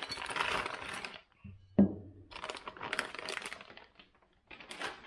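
Clear plastic bag crinkling as a new aluminium AR-15 handguard is unwrapped, with a single sharp knock about two seconds in, the loudest sound, and more crinkling after it.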